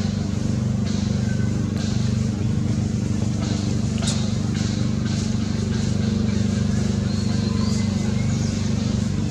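A steady, low mechanical drone, like a motor or engine running without change. A short click comes about four seconds in, and faint high chirps come near the end.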